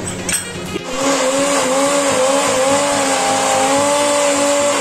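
Electric countertop blender starts about a second in and runs steadily at speed, its motor whining with a pitch that wavers slightly. It is puréeing chopped garlic and ginger with a little water and oil into a paste.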